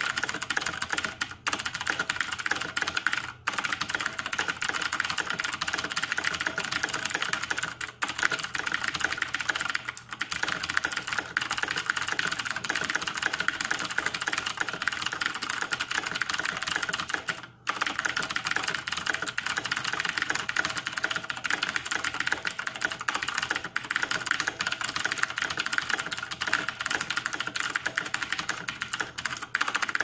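Very fast typing on a backlit computer keyboard: a dense, unbroken clatter of keystrokes at about 150 words per minute, with a few brief pauses, the longest about 17 seconds in.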